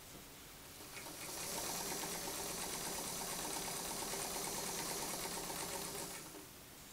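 Vintage Meister-Werke sewing machine stitching through fabric: a fast, even run of needle strokes that starts about a second in, runs steadily, and slows to a stop near the end.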